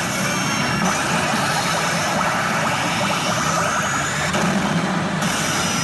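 Pachinko machine and parlor din: a dense, steady clatter and rushing noise, with a faint rising tone about midway.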